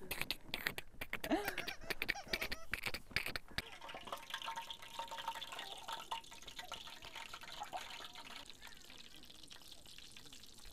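Dough frying in hot oil in a pan on a portable gas stove: a steady sizzle that slowly fades toward the end. Before it, about the first four seconds hold a brief voice and a rapid run of clicks and rustles.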